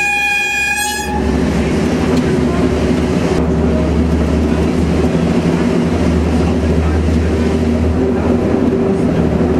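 A train horn sounds one steady note that cuts off about a second in. Then the train's engine runs with a steady low drone.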